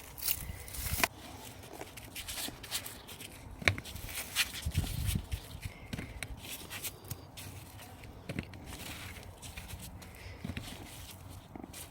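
Irregular rustling, scraping and soft knocks as potatoes are dug out of soil and handled by hand, with a few heavier thuds around the middle.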